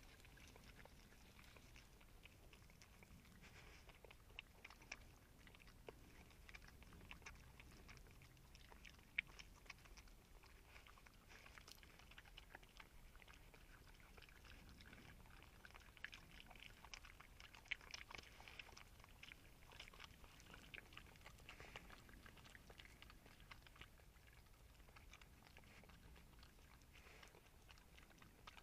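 European badger chewing and crunching food off the ground close to the microphone, with irregular small crunches and clicks and a couple of sharper cracks.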